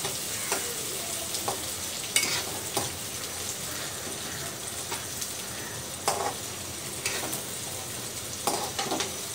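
Sliced onions and green chillies sizzling in hot oil in a wok, being sautéed until pink. A slotted spatula stirs them, scraping and tapping against the pan now and then.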